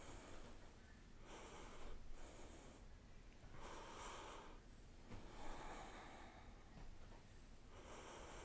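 A woman breathing softly in and out, each faint breath about a second apart. The breathing is the only sound above the room's low hiss.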